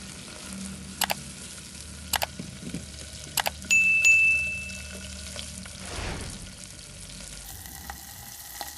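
Mutton pieces sizzling as they fry in hot oil in an open aluminium pressure cooker. Over the sizzle come three sharp double clicks about a second apart, then a short bright ding about four seconds in, the loudest sound, from a subscribe-button animation; a soft whoosh follows about six seconds in.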